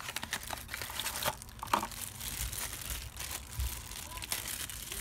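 Packaging being handled and opened: a small cardboard box and a clear plastic bag crinkling and rustling in the hands, with irregular sharp crackles throughout.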